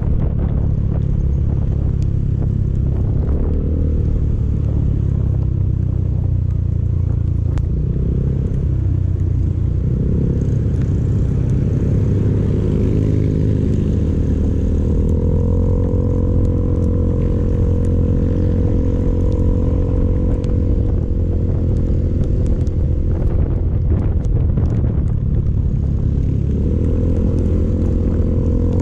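Motorcycle engine running while riding, its pitch rising and falling several times with the throttle.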